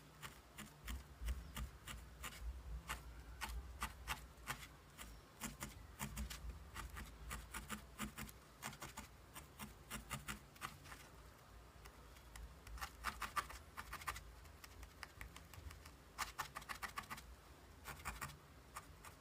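Felting needle stabbing wool into a foam pad: a long run of quick, scratchy pokes in irregular bursts, with short pauses between them.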